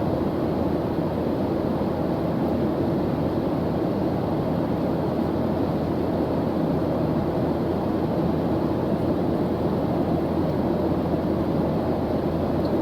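Steady airliner engine drone, a constant low rushing noise with a faint hum and no change in pitch or level.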